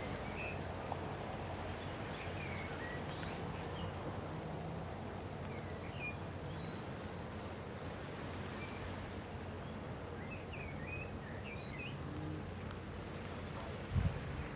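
Small birds chirping now and then over a steady outdoor background noise with a low hum. A short low thump comes near the end.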